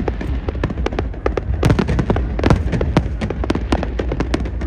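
Fireworks display: a dense, irregular barrage of sharp bangs and crackles, several a second, over a steady low rumble.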